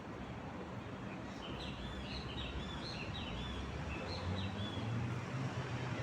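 A bird sings a quick run of short chirping notes over steady city traffic rumble. A vehicle's engine hum grows louder near the end.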